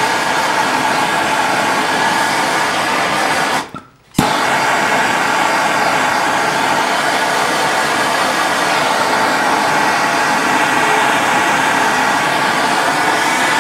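Handheld MAP-gas torch burning steadily with a loud, even hiss as its flame heats a steel steering-rack sleeve so it expands for fitting a chilled bushing. About three and a half seconds in the sound drops out for half a second and comes back with a sharp click.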